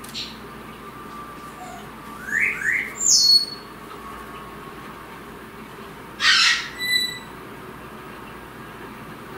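Goffin's cockatoo calling: two short rising chirps, then a loud shrill squawk about three seconds in, and another loud harsh squawk about six seconds in followed by a short whistled note.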